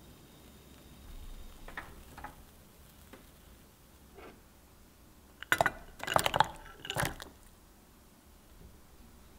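A few sharp clinks and knocks of ceramic and enamel kitchenware, bunched together past the middle, with fainter taps before them.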